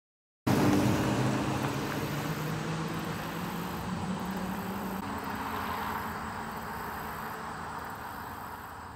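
A passing road vehicle: engine and tyre noise that cuts in suddenly about half a second in, then fades away slowly.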